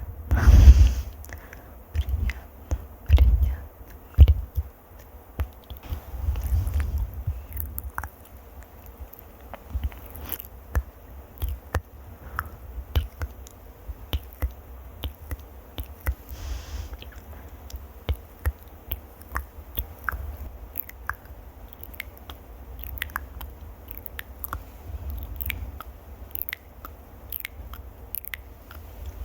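Close-miked ASMR trigger sounds: a steady stream of small crackles and clicks right at the microphone, with heavy low thumps near the start and again about three seconds in.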